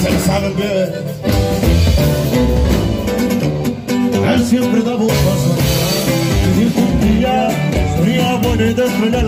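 Live norteño band playing a song: accordion and guitar, with a man singing over them.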